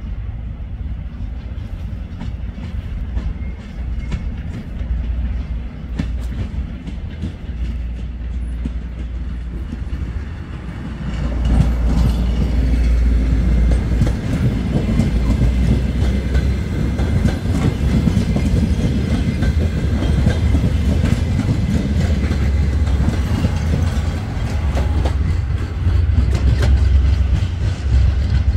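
DR1AC diesel multiple unit passing close by: a low rumble of the approaching train, then much louder about eleven seconds in as the carriages roll past, with wheels clattering over the rail joints.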